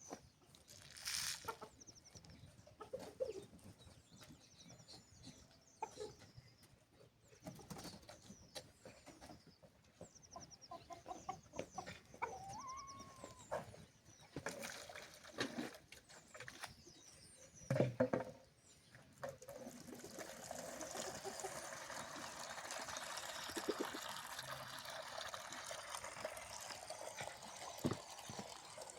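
Chickens clucking and small birds chirping, with a few scattered knocks. About two-thirds of the way through, a steady rushing noise starts and carries on under them.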